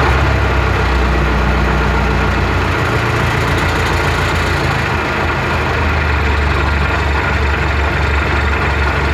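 MTZ-80 tractor's four-cylinder diesel engine running steadily, with a low drone that weakens for a couple of seconds midway and then returns.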